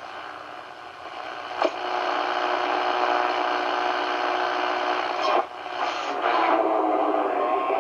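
Hallicrafters SX-100 shortwave receiver's loudspeaker on the AM broadcast band giving hiss and static with several steady tones while being tuned by a very sensitive adjustment. It grows louder about a second in, with sharp crackles about a second and a half in and again past five seconds.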